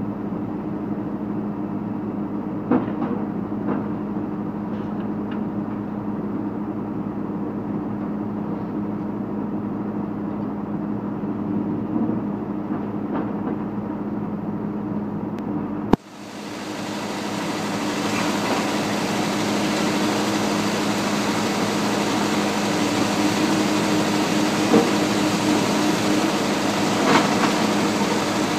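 Hydraulic demolition excavators running with a steady engine hum, with a few short cracks and crunches as the demolition jaws break concrete. About halfway through there is a sharp click, after which the sound turns brighter and hissier.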